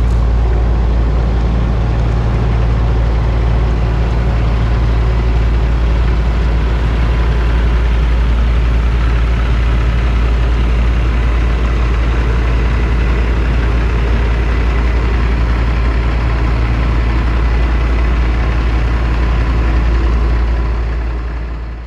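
Diesel engine of a Kenworth dump truck idling with a steady low rumble, fading out at the very end.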